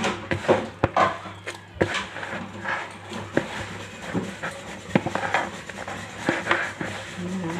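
Hands kneading soft yeast dough in a plastic bowl: irregular squelches, slaps and knocks of the sticky dough against the bowl.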